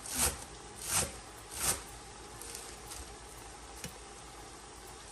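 Large kitchen knife slicing a bundle of fluted pumpkin leaves against a plastic cutting board: three cuts in the first two seconds, about three-quarters of a second apart, and a faint tick about four seconds in.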